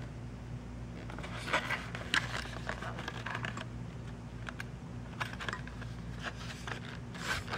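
Light, irregular clicks and crackles of a rigid clear plastic clamshell package being turned over in the hands, over a steady low hum.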